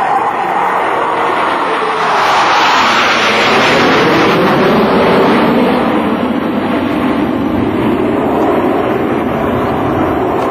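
Jet engines of a four-ship formation of F/A-18 Hornets passing overhead, a loud roar that swells to its peak about four to five seconds in. The pitch drops as the jets go by, and the roar then fades slowly.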